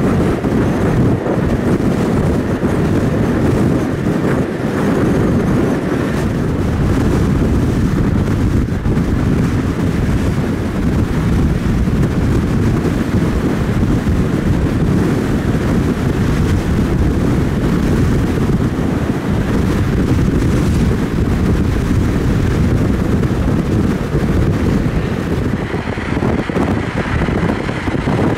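Car driving along the road: a steady low rumble of road and wind noise, with wind buffeting the microphone.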